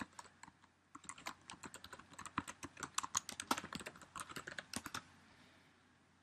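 Typing on a computer keyboard: a quick, uneven run of keystrokes lasting about four seconds, with a short pause a second in. It stops about a second before the end.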